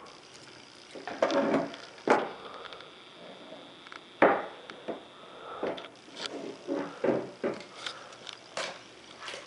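Hands prying and fiddling at a GoPro camera's packaging box, trying to get it open. It makes irregular clicks, scrapes and knocks, with sharper knocks about two and four seconds in.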